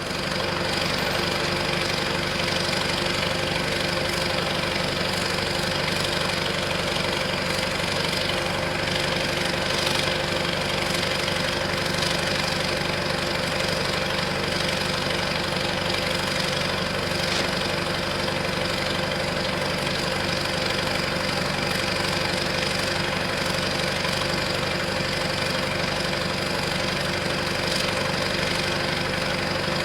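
Diesel engine of a flatbed tow truck running at a steady idle, with a steady high whine over it; no change in speed or level throughout.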